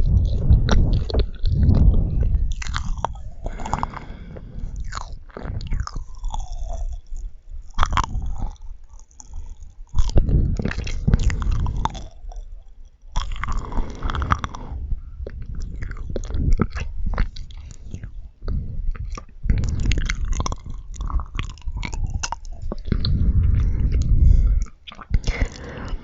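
Close-miked chewing of marshmallows, with wet mouth sounds and clicks, coming in bouts with short pauses.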